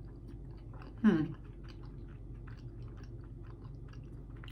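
Close-miked chewing of pizza: a run of small wet mouth clicks and smacks. About a second in, a short voiced sound falls in pitch, like a brief "mm".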